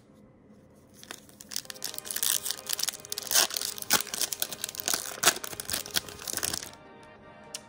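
Topps Chrome Update card pack's wrapper being torn open and crinkled, a dense run of sharp crackles that starts about a second in and stops shortly before the end.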